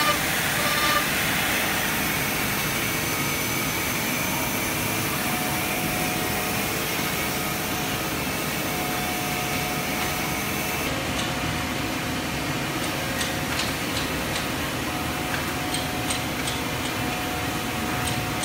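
Woodworking factory machinery, a CNC mortising machine among it, running with a steady noise and a faint steady hum; light clicks and taps in the second half.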